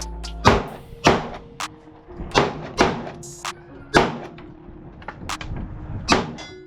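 Handgun shots at a shooting range, about ten sharp reports at irregular intervals of half a second to a second, each with a ringing tail. Music plays underneath.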